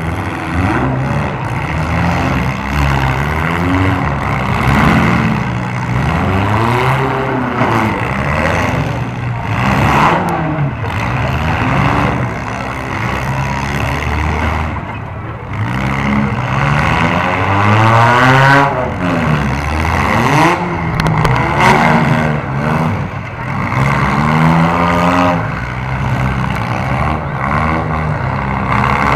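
Several demolition derby cars' engines revving, their pitch rising and falling over one another again and again, with a few sharp knocks of cars hitting.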